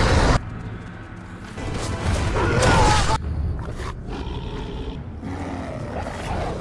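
Movie soundtrack of film score music mixed with giant wolves' snarls. A loud snarl cuts off abruptly less than half a second in, and a second swell of snarling over the music is cut sharply after about three seconds.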